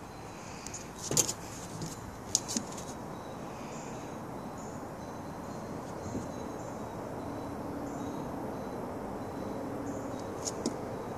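Steady outdoor background noise that slowly grows louder, with a few sharp clicks in the first three seconds and another near the end.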